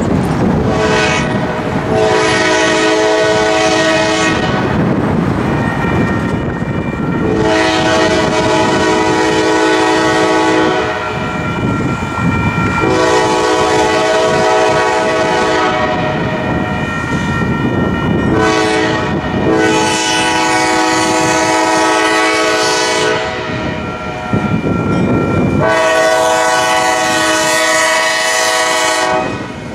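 Diesel locomotive's multi-tone air horn sounding a series of long blasts with a few short ones between, the grade-crossing warning, over the rumble of the approaching train.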